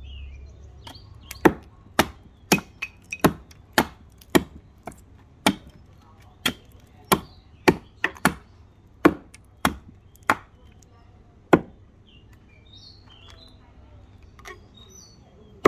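Hatchet chopping into wood: a run of about eighteen sharp strikes, roughly two a second at an uneven pace, that stops a few seconds before the end. Birds chirp faintly in the background.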